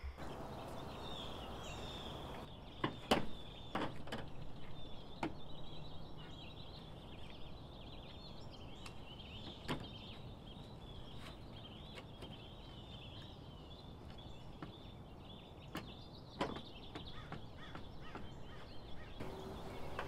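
Scattered sharp clicks and knocks of clamps being loosened and set down, over faint outdoor background with small birds chirping throughout.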